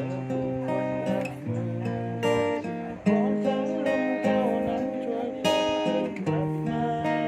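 Acoustic guitar music, strummed chords changing every second or so.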